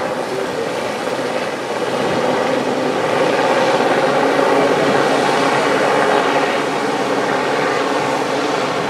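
Westland Sea King helicopter hovering, its rotor and twin turboshaft engines making a loud, steady noise that grows louder about two seconds in.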